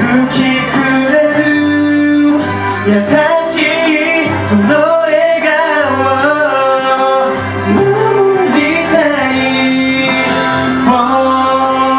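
A pop song with male vocals, sung into handheld microphones by a boy group over a backing track.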